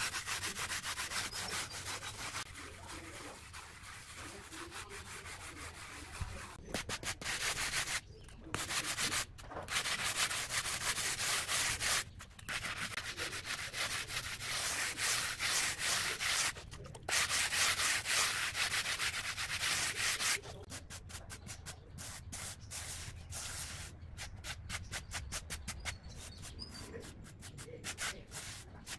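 A hand-held stone block rubbed back and forth over a cement surface, making a gritty scraping in quick strokes. It is louder through the middle with a few short pauses, then turns to quicker, lighter strokes in the last third.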